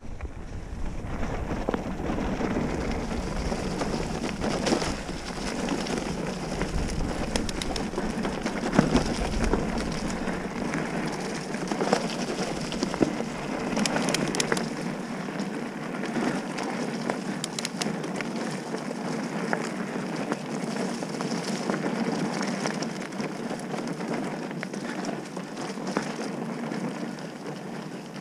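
Mountain bike riding fast down a dirt trail: a steady crunching rush of tyres over loose dirt, leaf litter and stones, with the bike rattling and several sharp knocks as it hits bumps.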